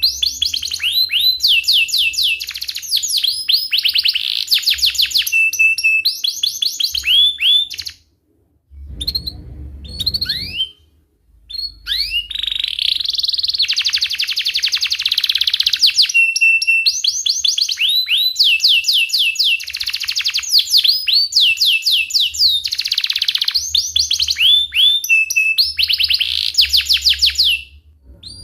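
Domestic canary singing a long, vigorous song of rapid repeated chirps and rolling trills, with held notes in between. The song breaks off briefly about eight seconds in, where a short low rumble is heard, then resumes.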